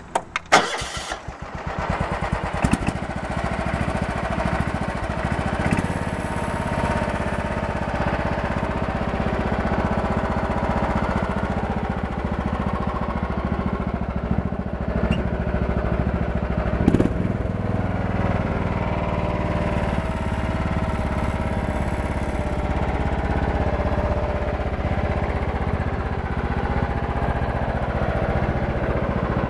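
John Deere 180 lawn tractor's Kawasaki FC540V single-cylinder engine cranked by the starter, catching about a second or two in, then running steadily. A single short knock about seventeen seconds in.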